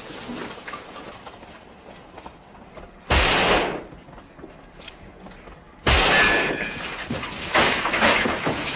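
Two loud gunshots, the first about three seconds in and the second nearly three seconds later, each with a short echoing tail. Two smaller sharp bangs follow near the end.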